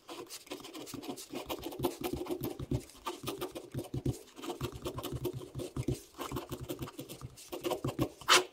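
A pencil scratching across paper while writing letters: quick, irregular strokes, with one louder stroke near the end.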